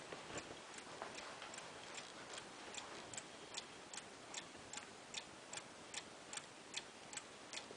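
Bulova chiming mantel clock's escapement ticking steadily and faintly, about two and a half ticks a second, heard through the open back of the case.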